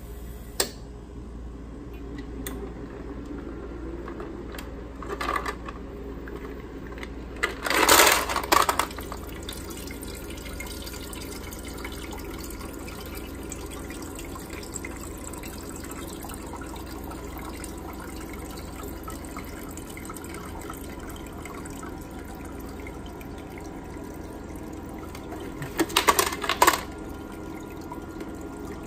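Countertop ice maker running with a steady hum as it harvests a batch. The cubes are released from the freezing prongs and clatter down into the basket about a quarter of the way in, after a few small clicks. A second burst of clattering comes near the end.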